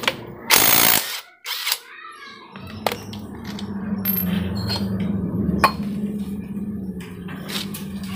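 A cordless impact wrench fires a short burst, about half a second long, spinning off the nut that holds the clutch bell on a Honda Vario scooter's CVT. After it come a few sharp metallic clinks as the clutch bell and loose parts are handled, over a steady low hum that starts about two and a half seconds in.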